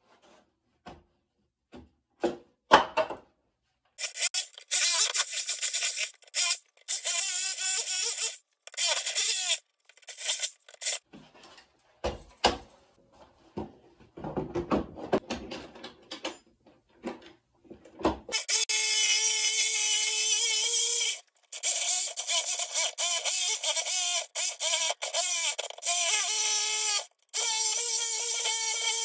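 Corded power tool working a plywood boat deck. It runs in scattered short bursts at first, then from about two-thirds of the way in it runs more steadily with a steady hum, stopping briefly a couple of times.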